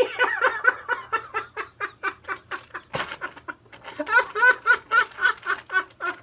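Laughter in quick repeated bursts, pausing briefly about halfway, with a single sharp click about three seconds in.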